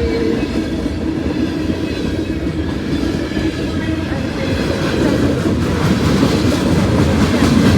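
A long Norfolk Southern freight train's cars rolling past, a steady heavy rumble of wheels on rail, with a few faint thin wheel squeals in the first half.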